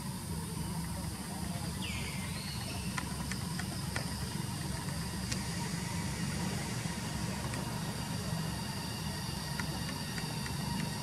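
Forest ambience at dusk: steady insect drone over a low, even rumble, with a few faint clicks and one short rising call about two seconds in.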